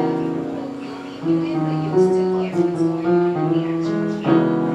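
Instruments playing held chords in a sound-check run-through, with new chords struck about a second in, at two seconds and near the end.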